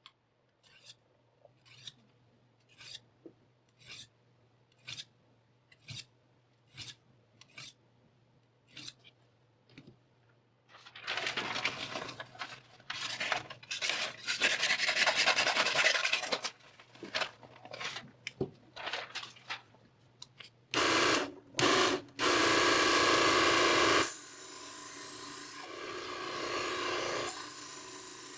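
A knife blade being sharpened on a grinder. First come short scraping strokes, about one a second. Then from about eleven seconds in there is loud, continuous rasping with brief breaks, which settles into a steadier, quieter grind for the last few seconds.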